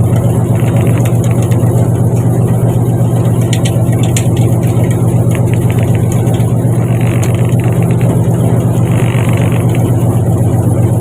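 Fishing boat's engine running steadily, a loud, even low hum that does not change pitch, with a few faint ticks about four seconds in.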